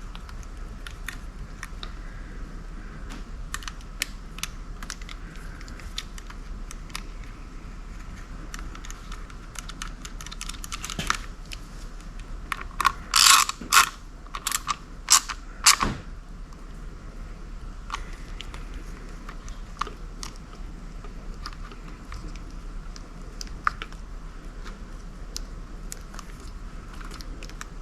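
Small clicks and metallic taps of hand tools and wire terminals being worked on outboard motor wiring, with a quick cluster of louder clicks a little past the middle.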